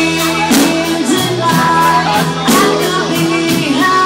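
Live band playing a rock song: a singer over a full band with drums, with a loud drum-and-cymbal accent about every two seconds.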